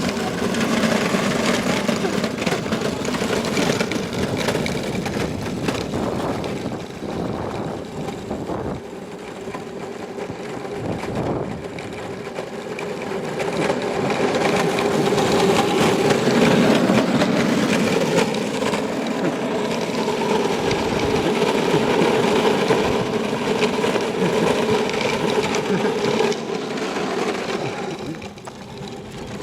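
Electric motor of a battery-powered ride-on go-kart running with a steady hum, dropping in level about nine seconds in and again near the end.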